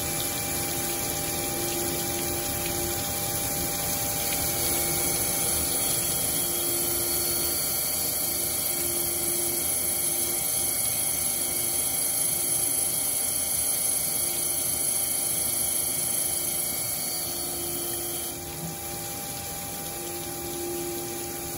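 Jones & Shipman Format 1000M CNC cylindrical grinder running a multi-plunge grind cycle: the grinding wheel plunges into a spinning metal part under flood coolant, giving a steady hiss of coolant and grinding over the machine's hum. The high hiss eases off near the end.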